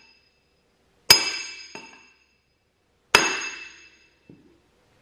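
Two hard hammer blows, about two seconds apart, on a flat steel plate laid over a new cylinder sleeve. Each gives a ringing metallic clang that dies away within about a second, followed by a light knock. The blows drive the last of the sleeve down into the Kubota B5100's cylinder bore.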